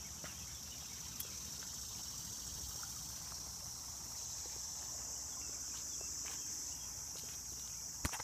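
A steady, high-pitched chorus of insects droning without a break, with a couple of sharp knocks near the end.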